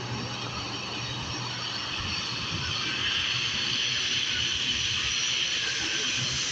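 Turboprop airliner's engines at takeoff power during the takeoff run, a steady rushing noise that grows louder about halfway through.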